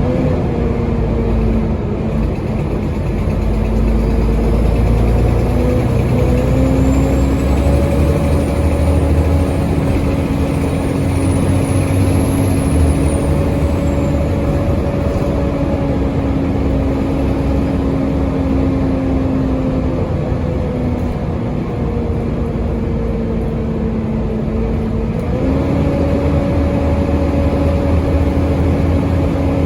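Volvo B7TL double-decker bus under way, heard on board: its engine drones with a steady whine that steps up in pitch twice, over a low rumble. A thin high whistle rises and then falls away in the middle, from the loud turbocharger on this worn-out bus, which is stuck in a constant vacuum-cleaner-like "hoover" whine.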